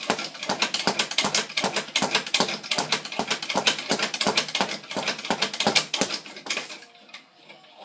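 Speed bag being punched in a fast, even rhythm of sharp hits, several a second, that fades out and stops near the end.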